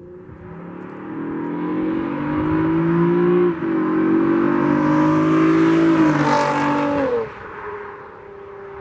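Honda Accord's 3.5-litre V6, with aftermarket high-flow cats and a Borla exhaust, accelerating hard past. The engine note climbs, breaks briefly as the automatic upshifts about three and a half seconds in, and climbs again. About seven seconds in the pitch drops and the sound fades as the car goes away.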